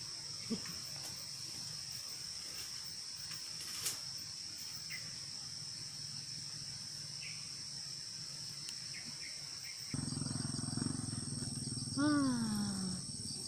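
Steady, high-pitched drone of insects in farm vegetation, two unbroken tones over a faint hiss. Near the end, one short falling voice-like call.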